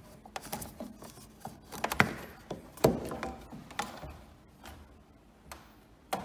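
Plastic boiler condensate cup and its corrugated drain hose being handled and pushed into place: a scatter of light clicks and knocks, the two loudest about two and three seconds in.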